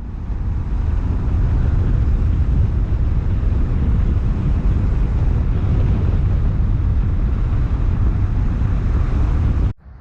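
Loud wind rumble buffeting the microphone, a steady low roar that stops suddenly near the end.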